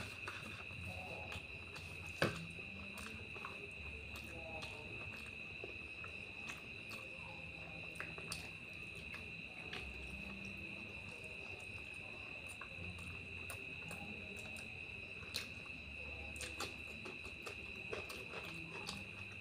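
Mouth sounds of eating rice and curry by hand: soft chewing and lip smacks, with a sharp click a couple of seconds in, over a steady high-pitched hum.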